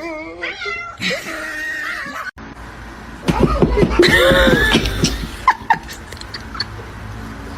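A cat meowing with people laughing; the loudest stretch starts about three seconds in and lasts about two seconds.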